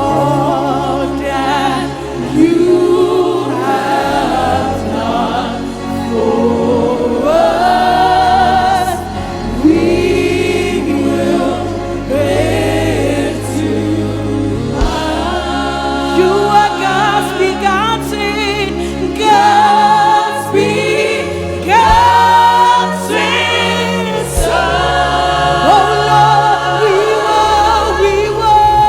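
Live gospel worship music: a choir of voices singing long, wavering notes with vibrato over a sustained instrumental backing.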